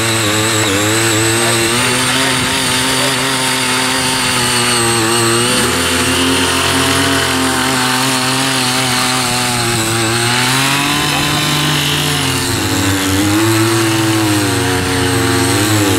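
Several mini rotary tillers' small petrol engines running at once, their pitches rising and falling unevenly as the tines dig into the soil.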